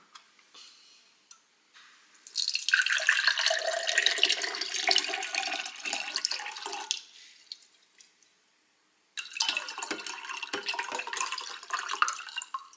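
A drink poured from a can into a tall drinking glass, splashing as the glass fills, in two pours of about four or five seconds each with a short pause between them.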